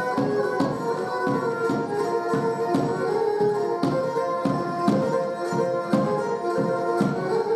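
Traditional Pontic Greek dance music: a high melody line over a steady drum beat about three times a second.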